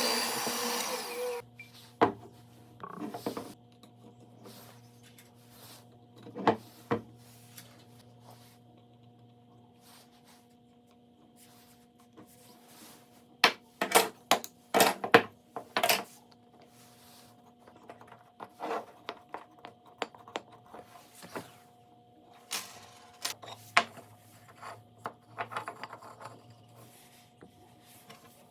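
A power tool runs and cuts off about a second in. Scattered knocks, taps and clatter of wood and tools being handled follow, busiest in the middle, over a faint steady hum.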